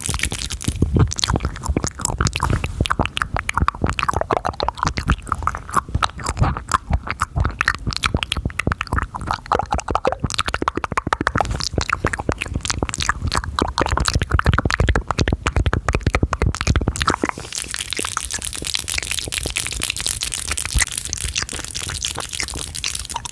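Fast, intense ASMR mouth sounds close to the microphone: rapid, irregular wet clicks and smacks. About two-thirds of the way through they give way to a steadier hissing sound.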